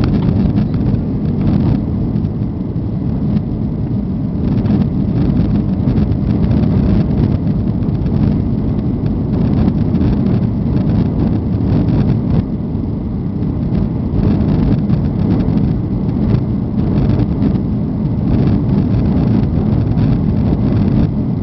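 Steady, loud cabin noise of a Boeing 737 airliner in flight: the jet engines and the rush of air past the fuselage, heard from a window seat as a deep, even rumble.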